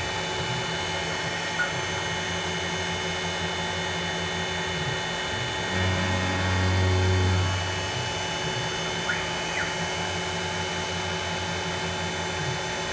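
Grizzly G0704 CNC benchtop mill running a drilling cycle: the spindle turns steadily with a drill in an aluminium block while coolant sprays. A deeper hum swells for a second or two about six seconds in, with a few brief rising and falling whines.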